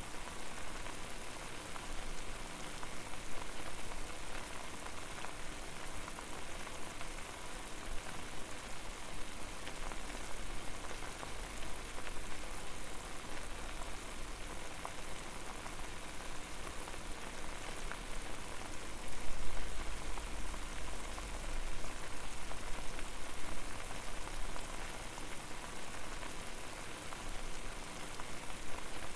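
Water boiling over a fire: steady, dense bubbling and popping, with a low rumble that swells for a couple of seconds about two-thirds of the way through.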